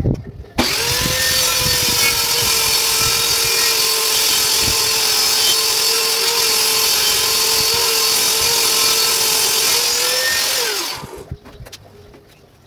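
Benchtop table saw starting up with a sudden whine, running at a steady pitch for about ten seconds, then switched off, its pitch falling as the blade spins down.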